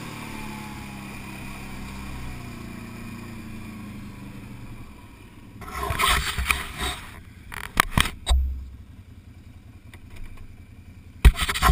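ATV engine running at low speed, its pitch falling and its sound fading as the quad slows to a stop. From about halfway on come irregular loud rustles and knocks right at the microphone.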